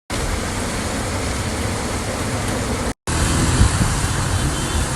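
Rain falling in a steady hiss, with a low rumble underneath; the sound cuts out for a moment about three seconds in.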